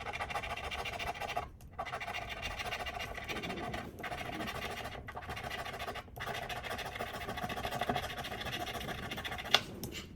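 A lottery scratch-off ticket being scratched: quick, steady scraping of the latex coating in runs, broken by several brief pauses, with a sharp tap near the end.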